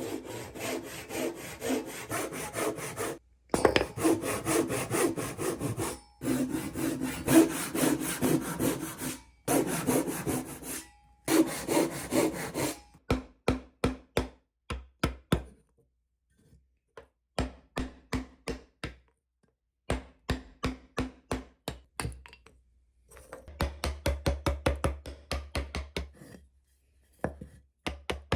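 Hand saw cutting through wood in quick, even back-and-forth strokes. The first half is a near-continuous run with brief breaks. After that come shorter bursts of separate strokes with pauses between them, as the cut is worked in short runs.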